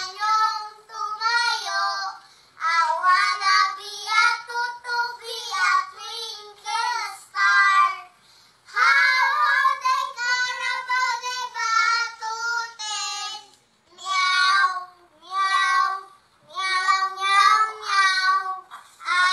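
Young children singing loudly in high voices, in short sung phrases with brief pauses between them.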